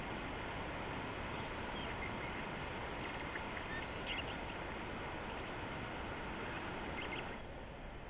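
Steady hiss of a trail camera's microphone, with a few faint, short, high chirps scattered through it. Just before the end the hiss drops a little.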